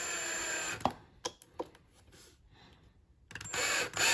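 Drill driving hinge screws into MDF, running in a short burst at the start and again near the end, with a few sharp clicks between.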